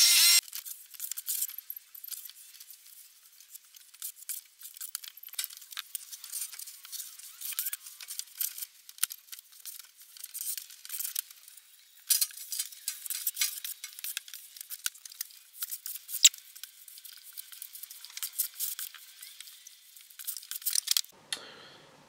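Wet sand mixed with canola oil being scraped and spread over corrugated metal sheeting: an irregular run of short gritty scrapes and light clicks.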